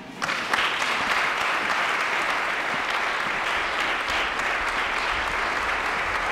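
Audience applauding, breaking out suddenly just after the start and holding as dense, steady clapping.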